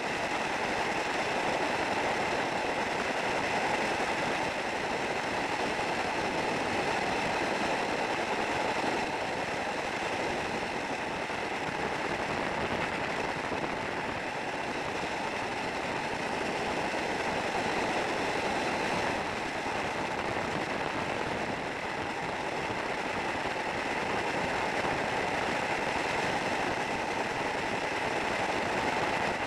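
Steady rushing roar of freefall wind over the camera flyer's microphone, with no break or change.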